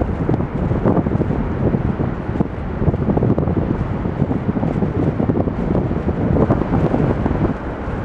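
Strong wind buffeting the microphone in a steady low rumble, over rough North Sea surf breaking against a rock groyne.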